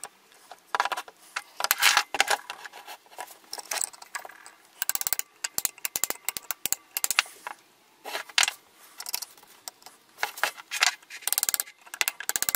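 Small hand tools clicking and scraping against the screws and tab washers of a Mobylette magneto stator plate while its coil is tightened down. The clicks come in quick bursts separated by short pauses.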